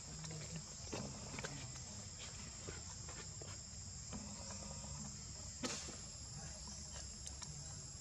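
Steady high-pitched drone of insects, typical of forest crickets or cicadas, with a few faint clicks and one sharper click a little before six seconds in.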